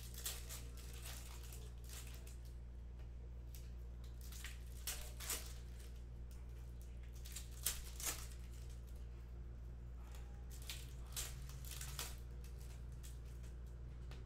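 2019-20 Panini Hoops basketball cards being handled and flicked through by hand, with crinkles from foil pack wrappers: scattered short snaps and rustles, a few louder ones about five and eight seconds in, over a steady low hum.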